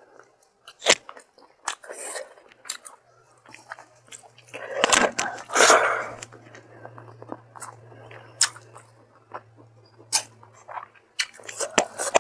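Close-miked chewing of a mouthful of rice and hilsa fish curry, with many short, sharp mouth clicks and smacks. A longer, louder noisy sound comes about five seconds in.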